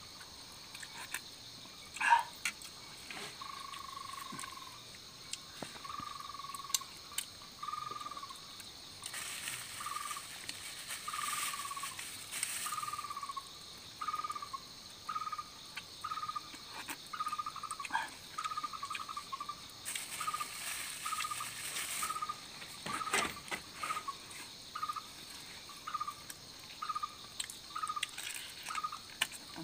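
Steady drone of forest insects, with one animal calling a short, clear note over and over, about once a second, the notes growing shorter and quicker. A few sharp clicks come from cooked meat being pulled apart on leaves, the loudest about two seconds in.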